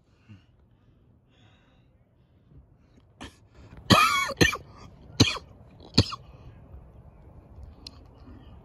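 A person coughing close to the microphone: a loud, throaty double cough about four seconds in, then two shorter single coughs about a second apart.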